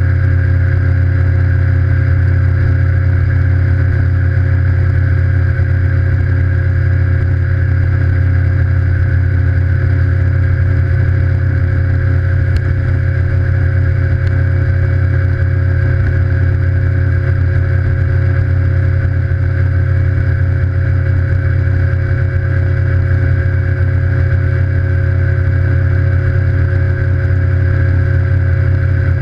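Evinrude E-TEC G2 150 HO outboard, a V6 two-stroke, running steadily at high speed with the boat on the plane, with no change in pitch, over the rush of the wake.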